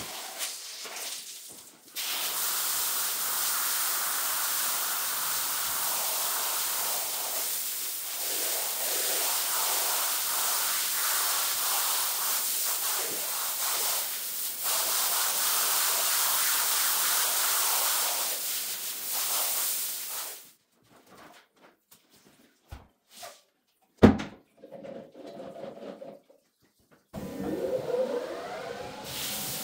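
Steady hiss of water spraying onto a rug during washing, cutting off about two-thirds of the way through. Then it is nearly quiet apart from a few small clicks and one sharp knock, and scraping over the rug starts near the end.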